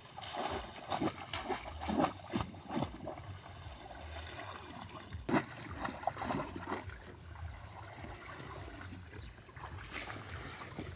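Water splashing and sloshing in irregular bursts, busiest in the first three seconds and again around the middle, over a steady low hum.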